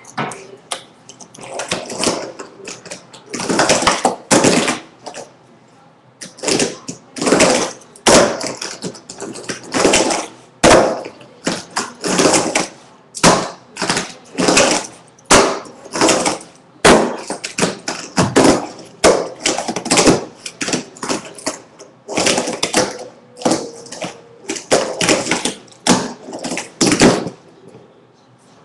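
Tech Deck fingerboard wheels rolling back and forth over a cardboard halfpipe: a rushing roll that swells and fades about once a second, with a few sharp clicks.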